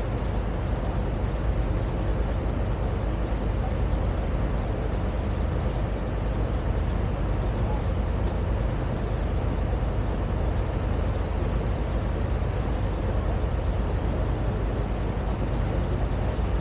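Boat under way: a steady low engine drone with the rush of water and wind, unchanging throughout.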